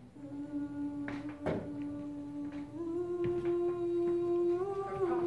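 A voice humming a slow tune in long held notes, stepping up to a higher note about halfway through. A couple of soft knocks sound about a second and a half in.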